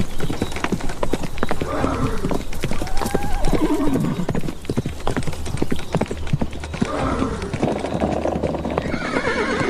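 Galloping hooves in a dense, rapid clatter, with horses whinnying several times over it.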